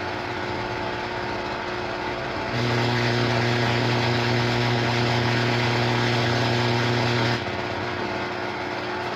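VLF receiver's loudspeaker giving a steady background hiss; about two and a half seconds in, a cell phone charger is plugged into the outlet and its interference comes through as a louder hum with hiss, which drops back to the background hiss about seven seconds in. The hum is man-made interference from the charger as a non-linear load on the mains.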